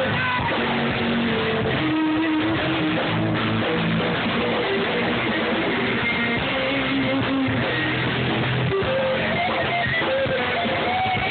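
Live band playing an instrumental stretch with no singing: electric guitar over bass guitar and drums, steady throughout.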